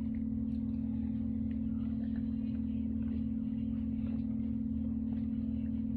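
A steady low hum held at one pitch, with a few faint, soft ticks over it.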